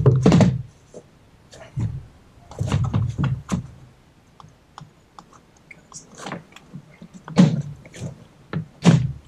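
Plastic trim panel and its push clips on a Tesla Model 3's frunk being pried and pulled loose by hand: a series of short plastic knocks and clicks at irregular intervals, about half a dozen, with a rubber seal being peeled away between them.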